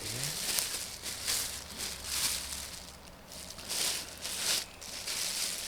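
Packaging rustling as it is handled, in several short, irregular bursts.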